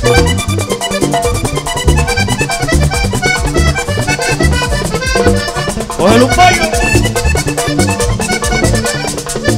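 Vallenato band playing an instrumental passage of a paseo: a diatonic button accordion leads over bass guitar and percussion in a steady rhythm, with a short upward glide about six seconds in.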